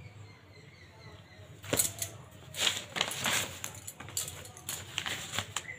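Paper rustling and handling noise from notebooks and loose sheets being picked up and turned over, in a string of short, sharp bursts that start about two seconds in.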